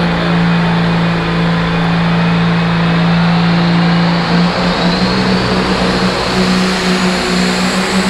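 A tractor-pull tractor's engine running hard at high revs, a loud, steady note that shifts and wavers in pitch about four seconds in, with a faint rising whine above it.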